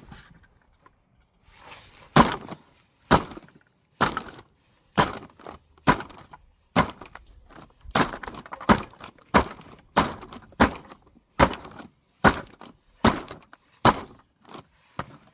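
Repeated heavy blows smashing a cheap plastic hairdryer: about sixteen sharp cracks and thuds, a little under a second apart, starting about two seconds in, with the casing cracking and splintering between them.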